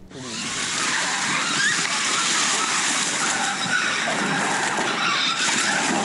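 Large wooden bone-cage prop with stuntmen inside tumbling down a dirt slope through undergrowth: a steady rushing, crackling noise that starts just after the beginning and does not let up.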